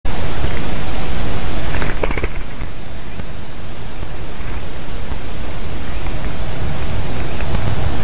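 Wind buffeting the nest camera's microphone: a loud, steady rush with an uneven low rumble, easing slightly about two seconds in, when a couple of brief sharp sounds are heard.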